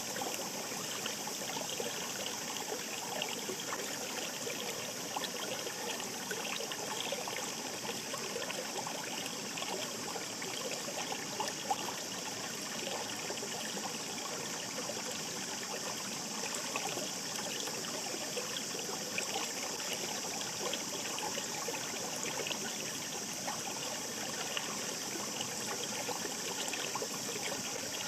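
Shallow mountain stream running steadily: an even rush of water flecked with many small trickles and splashes.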